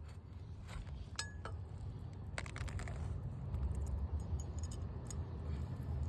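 Light metallic clinks and ticks of roofing nails and hand tools being handled while nails are placed under lifted asphalt shingle tabs, scattered irregularly with a small cluster about a second in and another near two and a half seconds. A steady low rumble runs underneath and grows a little louder.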